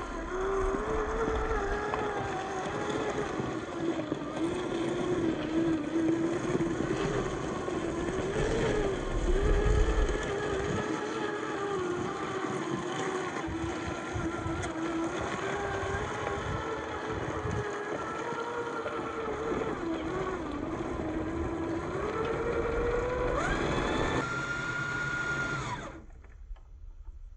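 The electric motor and gearbox of a Traxxas TRX4 RC crawler whine as it climbs a loose gravel slope under load. The pitch wavers with the throttle, over crunching and scrabbling from the tyres. Near the end the whine rises sharply to a high pitch and then cuts off.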